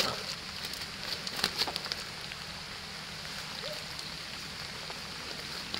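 Cast net and fish being handled by hand: light clicks and rustles of the mesh, most of them in the first two seconds, over a steady outdoor hiss.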